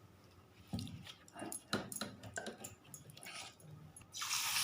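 A few light clicks and knocks, then about four seconds in a sudden steady sizzle starts as battered chicken pakoda goes into hot oil and begins to fry.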